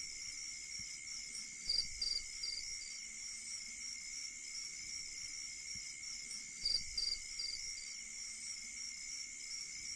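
Night ambience of crickets: a steady high trilling. A short run of three or four sharper, louder chirps comes twice, about two seconds in and again about seven seconds in.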